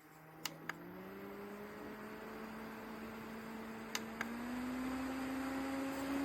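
Portable air conditioner's fan motor spinning up: a hum that climbs slowly in pitch as a rush of air grows louder, with a few short clicks along the way.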